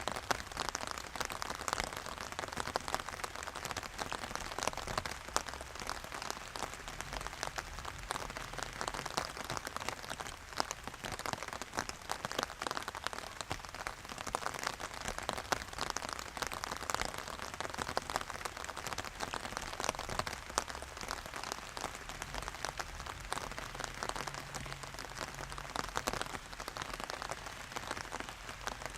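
Steady rain falling, with many individual drops heard close up as a dense, even spatter.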